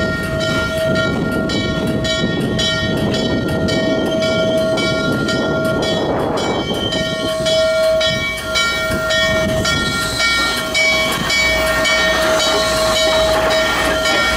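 Norfolk & Western 611, a streamlined 4-8-4 J-class steam locomotive, moving slowly past at close range, its bell ringing steadily about twice a second over the rumble of the engine, with a short pause in the ringing about halfway through.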